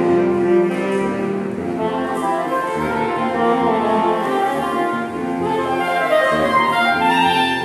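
Saxophone quartet playing together: several saxophones holding chords under a moving melody line, with no break.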